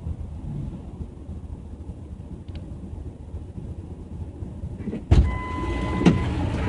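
Low, steady rumble of a stationary vehicle idling, heard from inside the cab. About five seconds in comes a sharp, loud thump, then a steady beep for about a second that ends with a click.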